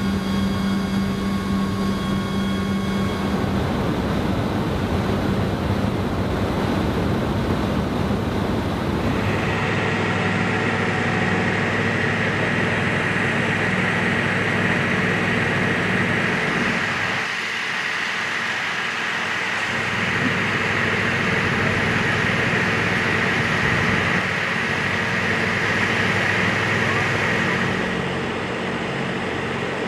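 Steady aircraft noise: a low drone inside a tiltrotor's cabin for the first few seconds, then flight-line noise with a steady high whine over a low hum. The low hum drops out briefly about two-thirds of the way through.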